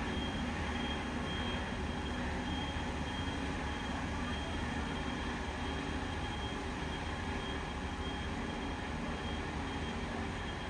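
Heavy machinery running steadily with a low rumble and a faint thin high whine over it.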